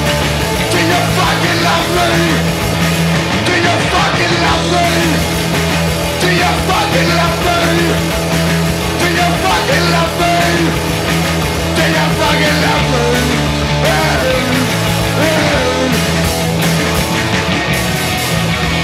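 Punk rock band playing live: drum kit, electric bass and electric guitar playing loud and full.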